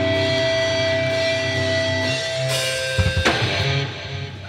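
Rock band playing live, with electric guitars and a drum kit: a held chord rings, a drum and cymbal hit lands about three seconds in, and then the music dies away.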